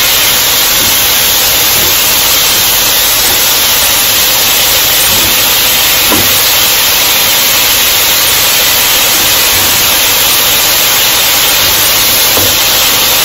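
Sliced flank steak searing in oil in a pan on high heat: a loud, steady sizzle, stirred with a wooden spoon, with a light knock about six seconds in and again near the end.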